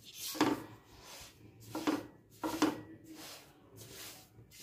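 Silicone spatula stirring and scraping dry semolina through melted ghee in a nonstick wok, in repeated short strokes under a second apart, as the semolina is roasted on low heat.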